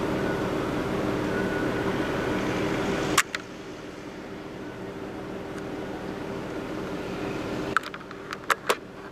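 A steady mechanical hum under a hiss that drops abruptly after a sharp click about three seconds in. A few more sharp clicks follow near the end.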